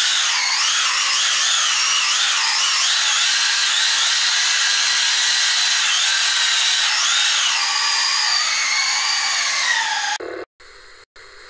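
Small RC car's electric motor whining at low throttle, its high pitch wavering up and down as the throttle is feathered, then cutting off suddenly about ten seconds in.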